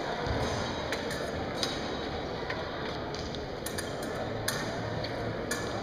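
Fencing bout on a metal piste: scattered sharp metallic clicks and clinks from blades and footwork over the steady murmur of a sports hall.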